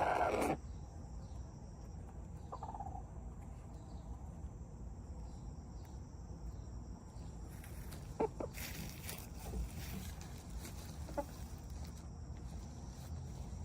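Backyard chickens in a coop. A loud call breaks off half a second in, followed by a few scattered soft clucks.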